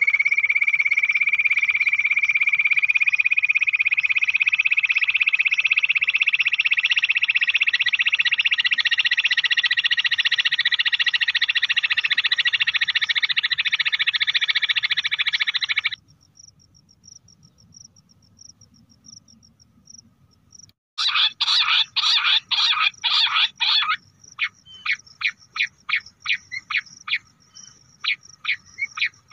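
Bush quail calling: a loud continuous trilling chorus that rises slowly in pitch, then cuts off suddenly about halfway through. After a few seconds' pause comes a burst of rapid call notes, then separate notes about three a second.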